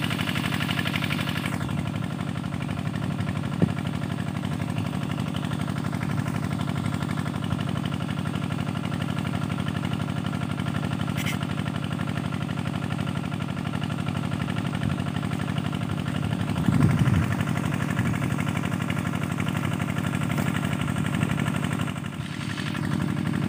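An engine running steadily in a low, even drone. A single sharp click comes about three and a half seconds in, and a brief louder rumble around the seventeen-second mark.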